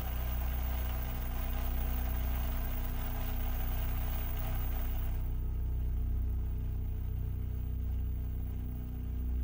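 A steady low droning hum with a hiss of TV static over it; the hiss drops away about five seconds in, leaving the low hum.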